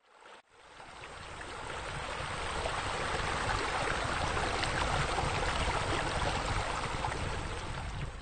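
Water splashing and trickling steadily from a two-tier spill-bowl fountain, fading in over the first few seconds.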